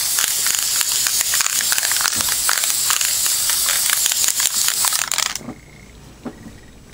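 Ironlak aerosol spray paint can spraying: a steady hiss with a fine crackle that cuts off suddenly about five seconds in.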